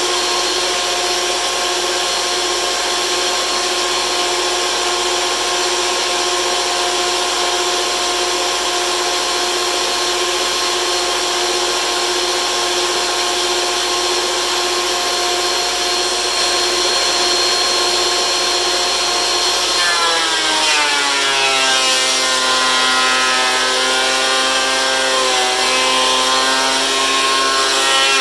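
DeWalt benchtop thickness planer running, its motor and cutterhead giving a loud, steady whine. About two-thirds of the way through the pitch drops and stays lower as a board feeds through and the motor comes under load from the cut, and it drops again right at the end.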